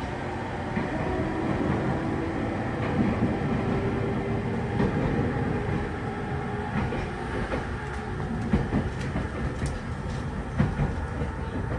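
Izukyu 3000 series electric train running, heard from inside the passenger car: a steady rumble with a motor whine for the first several seconds, then clicks of the wheels over rail joints in the second half.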